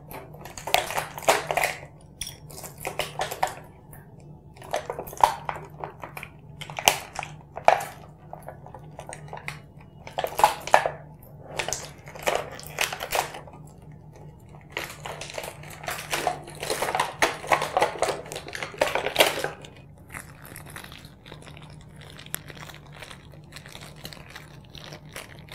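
Small plastic toy parts clicking and clattering in bursts as they are handled, unpacked and snapped together, becoming sparse and faint over the last few seconds.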